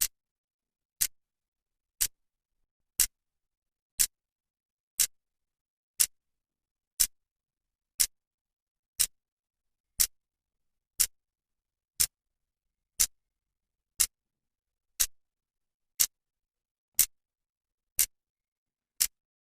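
Clock second hand ticking, one sharp, crisp tick each second with silence between.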